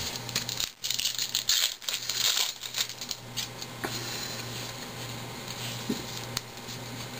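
2010 Topps Update baseball cards being flipped and sorted by hand. There is a quick run of light clicks and slides in the first three seconds, then a few scattered flicks over a low steady hum.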